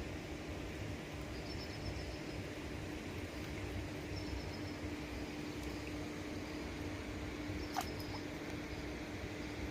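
Outdoor background noise with a steady low hum. Short, high chirping trills recur every couple of seconds, and one sharp, sweeping animal call comes about eight seconds in.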